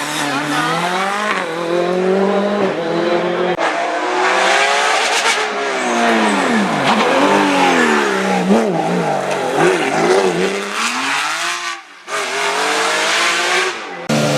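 Rally car engine running hard, its pitch rising and falling again and again as it revs up and backs off, with a brief drop in level near the end.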